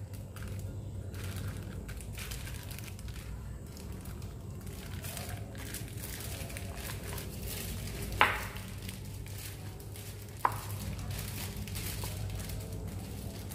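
A plastic bag crinkling and rustling as the flat of a cleaver presses a banana flat inside it on a wooden cutting board, with two sharp knocks a little past halfway, about two seconds apart.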